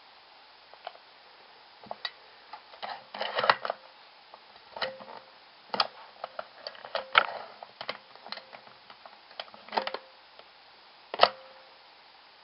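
Irregular clicks and clacks of a plastic nail-stamping machine being worked by hand, with a finger pressed into it to take the stamped image. Some come in quick clusters and a few ring briefly; a sharp click near the end is among the loudest.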